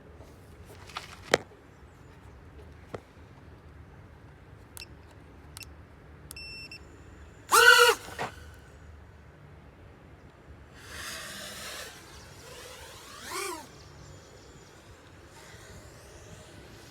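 Short electronic beeps, then a racing FPV drone's motors spinning up hard in brief bursts: a loud whine that rises and falls in pitch about eight seconds in, a noisy stretch a few seconds later and a second, shorter rise and fall near the end. A few light clicks come early on.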